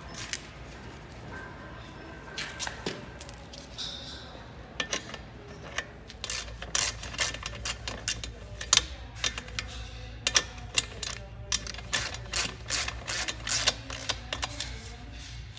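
Socket ratchet clicking in quick runs as an exhaust mounting bolt is run in and snugged, with a few scattered clicks at first and steady runs from about five seconds in.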